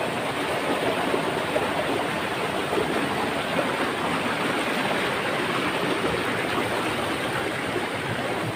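Shallow stream rushing and splashing over river rocks in small cascades, a steady even rush of water.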